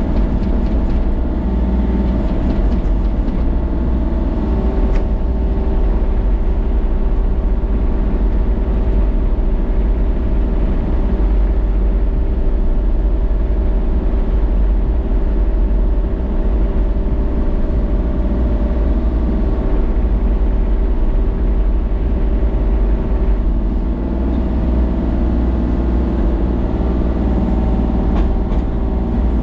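An engine running steadily at an even speed, with a strong low rumble.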